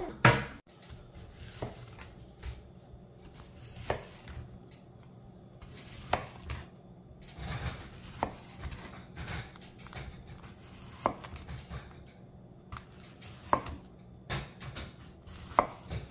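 Kitchen knife cutting peeled green plantain into small pieces, the blade knocking on the board beneath with each cut. Single sharp knocks come about every two seconds, the loudest right at the start.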